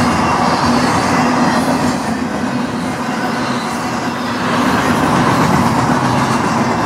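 Double-stack intermodal well cars of a freight train rolling past: steel wheels on rail make a continuous loud rumble and clatter over a steady hum. It swells twice as groups of cars go by.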